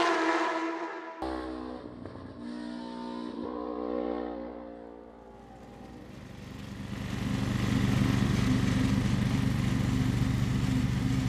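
A motorcycle engine passes with a falling pitch at the start. From about six seconds in, a ride-on lawn mower's engine runs steadily and grows louder.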